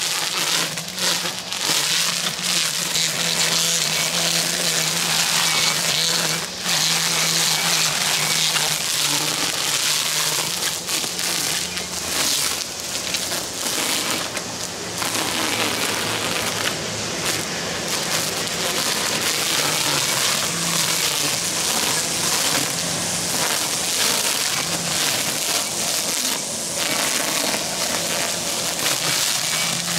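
Battery-powered string trimmer running steadily, its line cutting through tall, thick grass: a continuous hiss over a low, even motor hum.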